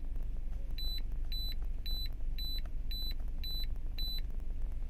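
Innova 5610 OBD2 scanner beeping at each button press as its live-data list is scrolled: seven short high beeps, about two a second. A steady low rumble of the idling car engine runs underneath.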